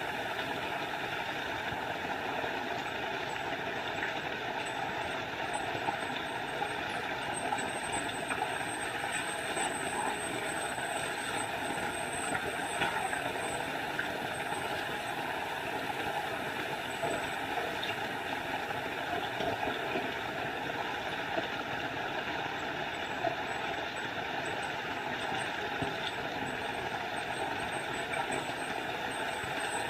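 Small forest waterfall: water falling and rushing in a steady, even noise. A faint, thin high tone comes and goes twice over it.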